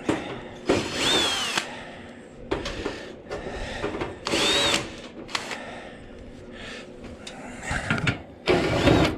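Power drill run in three short bursts, its whine rising and falling each time, with lighter knocks in between.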